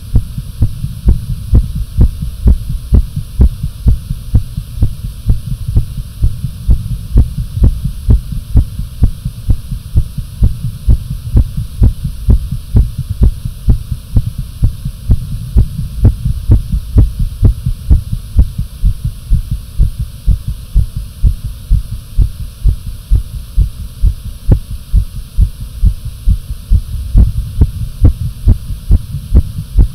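Amplified human heartbeat, raised after exercise: regular low thumps, about two a second, over a steady low hum.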